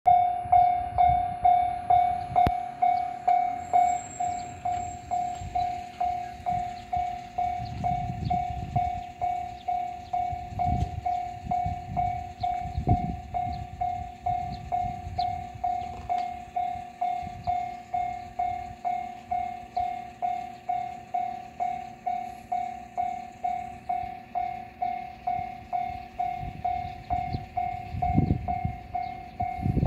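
Japanese level-crossing warning bell ringing, one electronic ding repeating evenly about one and a half times a second: the crossing is active for an approaching train. A few low rumbles come and go underneath.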